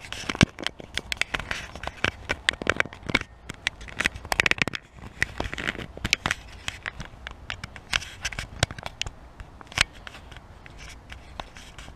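Close handling noise on the camera microphone: dense, irregular scratchy crackling and clicking, with a couple of brief rubbing scrapes about halfway through.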